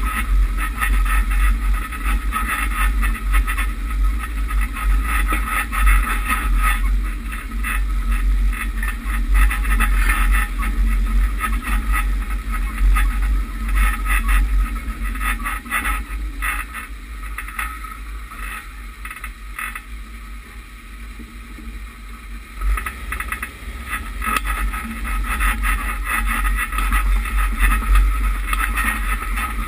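Lifted Suburban driving over rough grassland, heard from a camera mounted outside: steady deep engine and tyre rumble with wind buffeting and jolts on the microphone, quieter for a few seconds past the middle.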